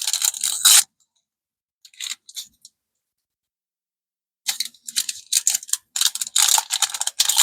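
Trading cards and their plastic packaging handled close to the microphone, as a crackly rustle of quick clicks and scrapes. It stops after about a second, with brief bits around two seconds in, and starts again about four and a half seconds in.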